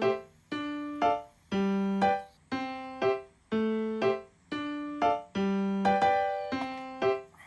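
Background music: a simple keyboard tune of repeating two-note phrases, a held lower note followed by a short higher one, about once a second.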